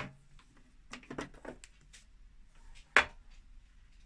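Plastic casing of a 1980s Philips radio cassette unit being handled and tipped over on a table: a sharp knock, a short patter of clicks and clatter about a second in, and another sharp knock near three seconds.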